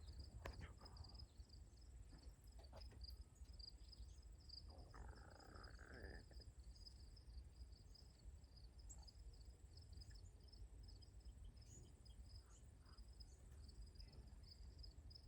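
Crickets chirping faintly in a steady, high, pulsing trill over a low background rumble, with one brief call about five seconds in.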